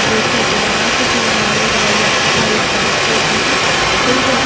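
Anar (ground fountain firework) spraying sparks, a loud, steady hiss.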